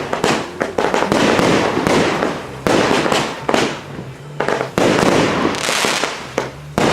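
Fireworks going off in quick succession: a dense run of sharp bangs with crackling between them.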